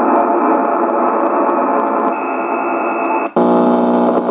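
Loud rough buzzing interference from a Yaesu HF transceiver's speaker on sideband, which the operator blames on a neighbour's plasma TV. About three seconds in it cuts out for an instant as the radio is retuned, then comes back as a harsher buzz made of many evenly spaced tones.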